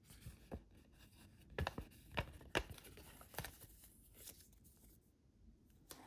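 A paper instruction leaflet being folded and handled: rustling and crinkling with several sharp crackles in the middle, then quieter toward the end.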